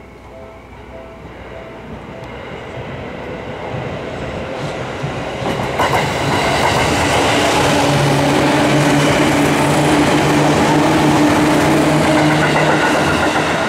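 Japanese level-crossing warning bell ringing in a steady pulse, drowned out as a Seibu Kokubunji Line train approaches and passes over the crossing. The train grows louder over the first six seconds, then runs past loudly with wheel clatter and a steady low motor hum, easing off near the end.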